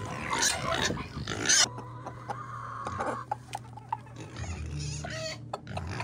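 Chickens at a plastic feed bowl: a loud rustling, scraping burst in the first second and a half, then clucking and scattered sharp taps as beaks peck at the feed pellets.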